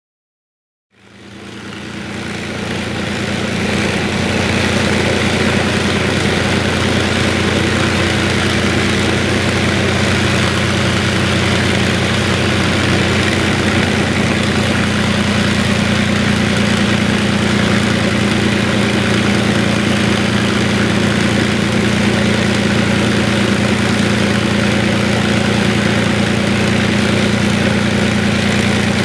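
An engine idling steadily, fading in over the first few seconds. It is not the Lancaster's own propeller engines, whose propellers are still at this point.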